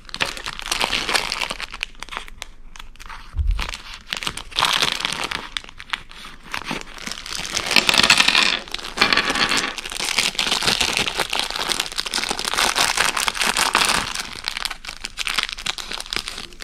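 Thin clear plastic packaging bags crinkling and rustling in bouts as they are handled and pulled open, loudest about eight seconds in.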